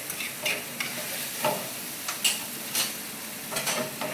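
Baby squid, tomato and zucchini sauce sizzling in olive oil and a little fish broth in a pan, stirred with a utensil that knocks and scrapes against the pan about half a dozen times.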